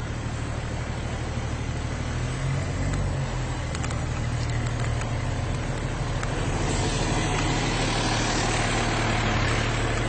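A vehicle engine idling with a steady low hum, and a hiss that grows a little louder partway through.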